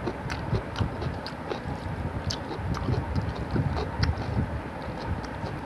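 Eating by hand: fingers squishing and kneading rice with fish curry on a steel plate, with wet mouth smacks and clicks from chewing. The clicks come irregularly, several a second.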